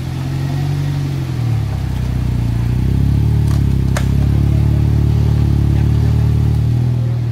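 Off-road 4x4's engine pulling under load through mud. The revs climb about a second and a half in, hold high, then ease off near the end.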